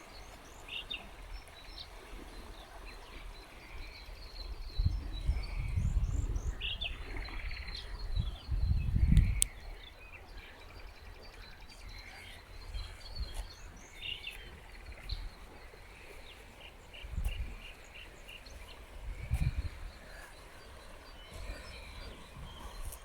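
Wild songbirds chirping and calling in short bursts over the steady hiss of a mountain stream. Several low rumbles come and go, the loudest about five to nine seconds in.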